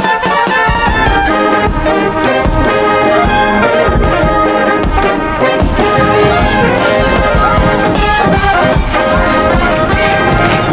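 Brass band music, trumpets and trombones playing held notes over drums.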